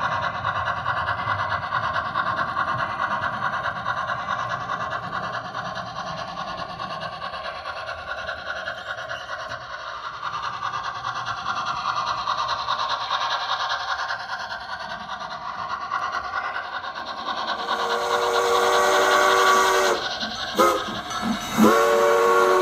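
HO scale model steam locomotive's sound running along the track, then a steam whistle chord of several notes starting about three-quarters in: a few short toots, then one long blast.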